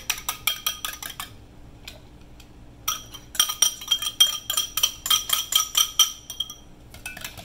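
Wire whisk beating against glass bowls in rapid clinking strokes. First it whips egg yolks in a small glass bowl, stops for about a second and a half, then whisks them into the milk mixture in a large glass measuring bowl, where each stroke makes the glass ring.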